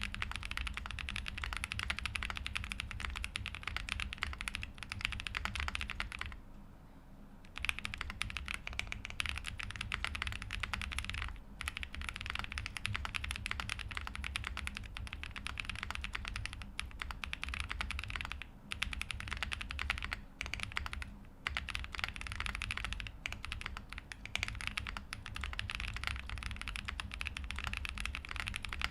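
Fast continuous typing on a custom mechanical keyboard with lubed Boba U4T tactile switches, GMK keycaps on an FR4 plate and PE foam, giving a deep, not loud keystroke sound. The typing pauses briefly about six seconds in.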